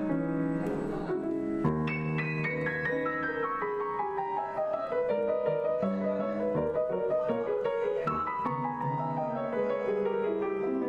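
Solo piano playing: chords and single notes in a flowing, unbroken line.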